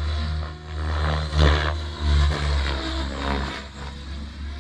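XLPower 550 radio-controlled helicopter flying overhead, its rotor and motor sound rising and falling in pitch as it manoeuvres. The loudest swell comes about a second and a half in.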